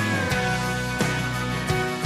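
Instrumental passage of a country song: the band plays on with a steady beat and no singing.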